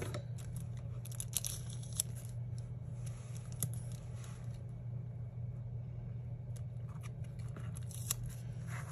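A clear planner sticker peeled off its backing sheet with metal tweezers, making scattered small crackles and clicks against plastic, over a steady low hum.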